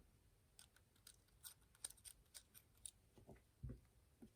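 Faint, irregularly spaced small clicks and light knocks, about ten in all, from pins, springs and tools being handled while a pin-tumbler lock is taken apart.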